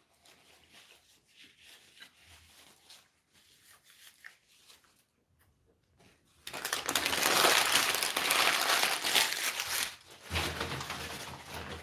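Paper food wrappers being crumpled up by hand: faint rustling at first, then loud, dense crumpling from about halfway through for several seconds, briefly pausing and starting again near the end.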